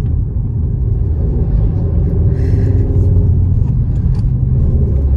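Steady low rumble of a car driving along a road, heard from inside the cabin: engine and tyre noise with no sudden events.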